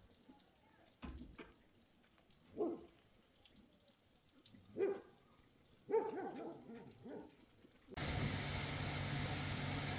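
A dog giving short calls, four of them a second or two apart. About eight seconds in, a sudden switch to a steady noise with a low hum.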